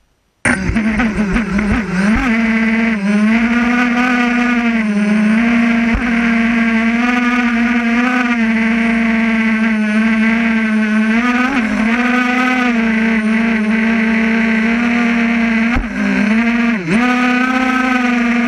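Quadcopter drone's motors and propellers hovering close over snow, a loud steady pitched whine that starts abruptly about half a second in and dips briefly in pitch a few times as the motors adjust.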